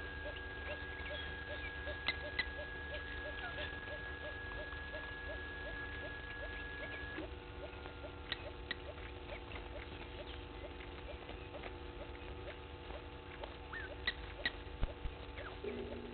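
Outdoor bush ambience: a soft short call repeats about three times a second under scattered higher bird chirps, over a steady low hum. A thin steady tone stops about halfway, and a few sharp clicks come twice early on and again near the end.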